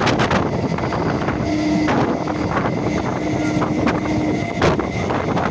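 Wind buffeting the microphone over the running noise of a moving electric local train, heard from an open coach doorway. A couple of sharp knocks stand out, about two seconds in and again near the end, and a faint steady hum runs through the middle.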